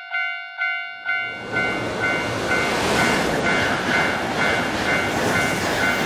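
Japanese level-crossing warning bell clanging in its kan-kan rhythm, about two strikes a second, warning of an approaching train. About a second in, the rush and rumble of a passing train comes in and drowns it, with the bell still ringing faintly underneath.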